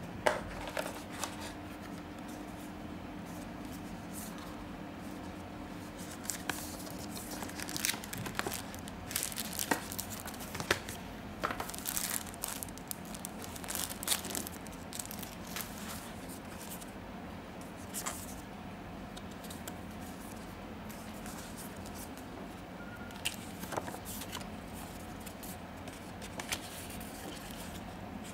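Paper and packaging being handled: irregular rustling and crinkling of leaflets and box inserts, with scattered clicks and taps, over a faint steady hum.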